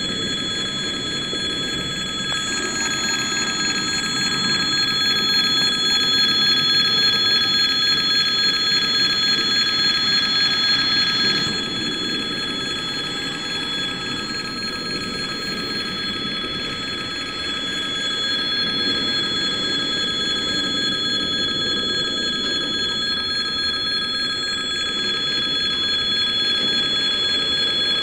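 A level crossing's electric warning bell ringing continuously, with several steady high tones. Under it runs the rumble of container wagons on a slow freight train rolling past.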